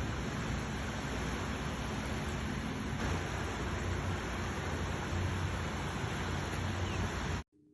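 Steady even hiss of background noise with no distinct events, cutting off abruptly near the end.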